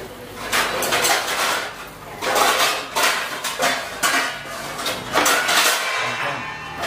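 Metal spatula scraping and stirring food in a frying pan, in repeated scraping strokes with short pauses between them.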